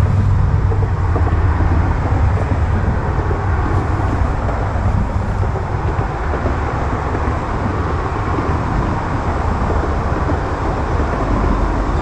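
Wind buffeting the microphone: a steady low rumble with a rushing hiss above it.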